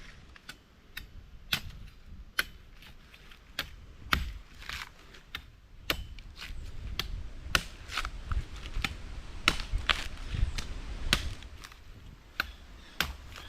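A string of sharp, irregular knocks and clicks, about one or two a second, over a low uneven rumble.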